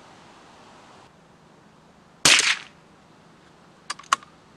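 A single suppressed .22 LR shot from a Weihrauch HW66P bolt-action rimfire rifle firing RWS Target ammunition, about two seconds in, with a short tail after it. Near the end come two quick, sharp clicks.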